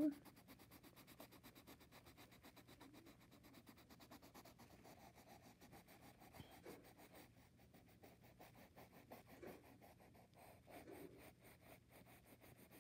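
Faint scratching of a coloured pencil shading on paper, many quick small strokes.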